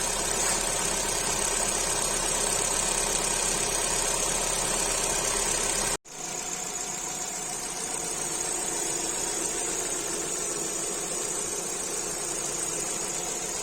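Opel/Vauxhall petrol engine running steadily at idle. The sound cuts out for an instant about six seconds in and resumes.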